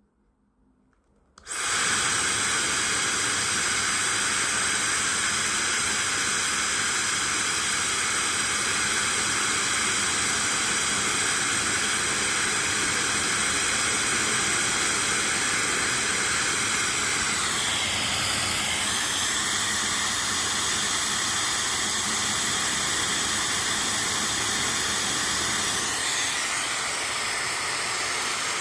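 A high-speed hair dryer is switched on about a second and a half in and then blows steadily: a loud rush of air over a high, multi-toned motor whine. Past the middle the whine dips and settles at a different pitch, and it shifts again near the end.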